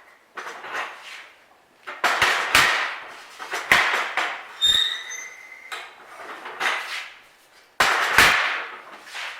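Sharp metallic clanks of steel gate-latch pieces being worked and handled at a homemade bending jig, about ten irregular strikes, a few leaving a brief ringing tone.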